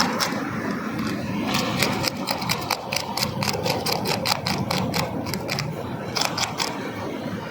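Fire crackling as two fish grill over it, with many rapid, irregular sharp pops and snaps.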